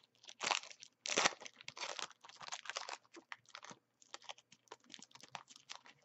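A trading card pack's wrapper being torn open and crinkled by hand, in irregular bursts of tearing and crackling rustle.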